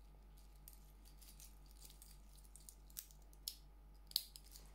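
Steel-and-wood link bracelet of a Holzkern wristwatch clinking and clicking as it is handled and put on the wrist. It starts with faint small ticks, then a few sharper clicks in the second half, the loudest near the end.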